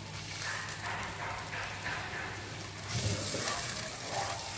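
Thin sauce sizzling in a nonstick frying pan on a gas burner while a plastic spatula stirs and scrapes through it, over a steady low hum.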